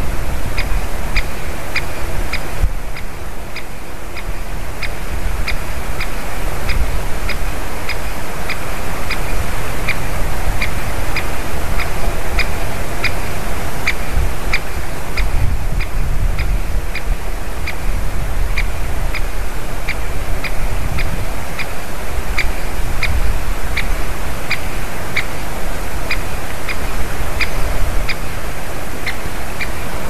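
Great spotted woodpecker giving its short, sharp call over and over at an even pace of about two calls a second, over a steady low rumble.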